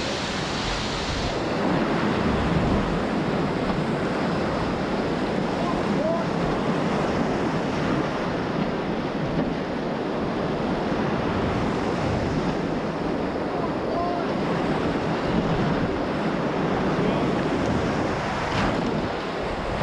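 Whitewater rapids of a mountain creek rushing and churning around a raft, a steady, dense noise of moving water.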